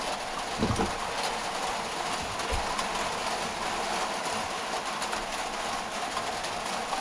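18V cordless drill spinning a sanding disc on a backing pad against the edge of an alloy wheel rim, making a steady sanding noise as it grinds down kerb damage.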